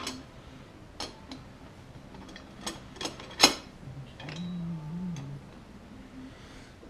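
Metal clicks and knocks of aluminium mill rails and bolts being handled and fitted together on a workbench. The clicks are scattered, with one sharp knock a little before the middle the loudest.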